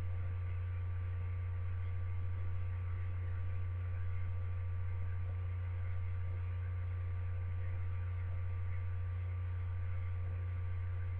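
Steady low hum, one unchanging tone with a few faint higher whines above it.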